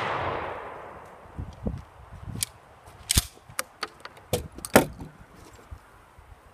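The echo of a Remington 870 12-gauge shotgun blast fading away over the first second. This is followed by a run of sharp metallic clicks and clacks as shotguns are handled on a wooden bench, the loudest clack near the end.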